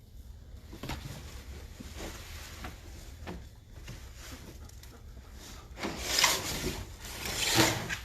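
Week-old puppies whimpering faintly, with two bursts of rustling bedding about six and seven and a half seconds in.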